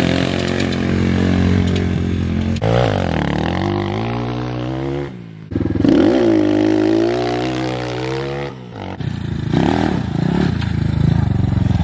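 Dirt bike engine revving and running under throttle, its note rising and falling as it is ridden, in several short clips that cut off abruptly one into the next.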